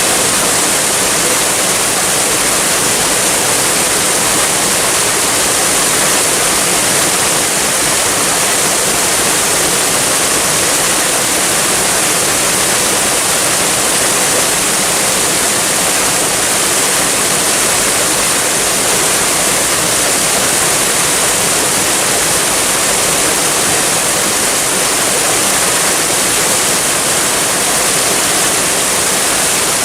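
Waterfall: water falling and rushing in a steady, unbroken loud hiss.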